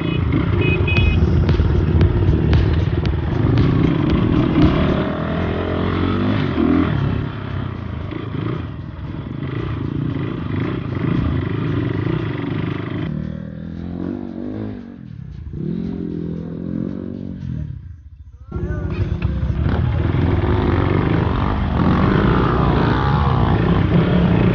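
Off-road motorcycle engine running and revving hard over rough ground. It eases off from about halfway, drops away sharply a little before the three-quarter mark, then picks up and runs hard again.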